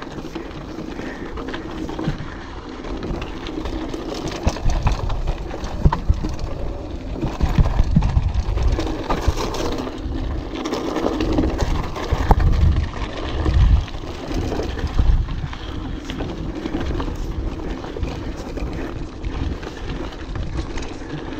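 Orbea Alma mountain bike ridden over rocky trail: tyres on dirt and rock, with the bike clattering and knocking over the bumps. Wind buffets the microphone in low, gusty rumbles that are heaviest in the middle stretch.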